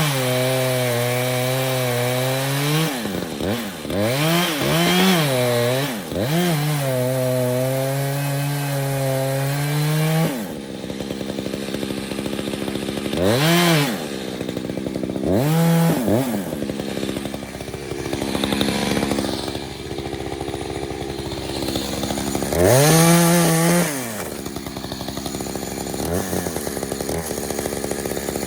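Two-stroke chainsaw cutting into a dead tree trunk at full throttle, dropping back to idle with short revs in between. It cuts for most of the first ten seconds, then mostly idles, with three brief rev-ups later on.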